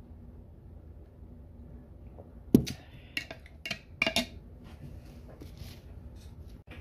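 A glass jar knocking down onto a table, then a spoon clinking several times against the inside of the glass jar as a protein drink is stirred.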